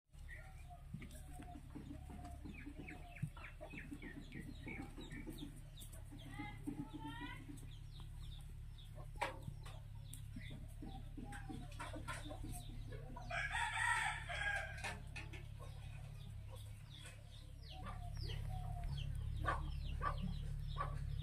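Chickens clucking, with a rooster crowing once, loudest about two-thirds of the way through, over a steady low hum.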